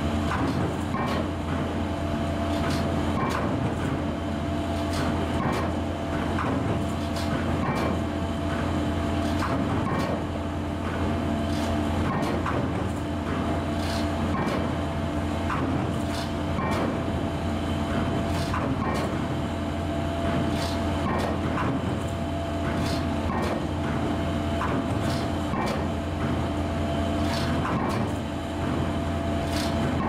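Bruce SGH-1815 hydraulic impact pile hammer striking an 800 mm concrete PHC pile about once a second, each blow a sharp impact, over the steady drone of the piling rig's machinery.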